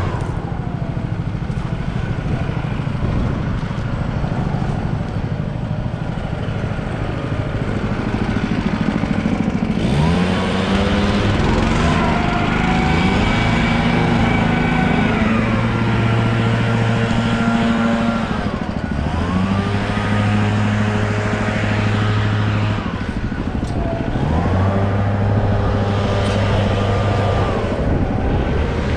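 Small gasoline engine of a PermaGreen Triumph stand-on spreader running steadily, speeding up three times (about ten seconds in, near the middle and near the end), holding the higher pitch for a few seconds each time, then dropping back.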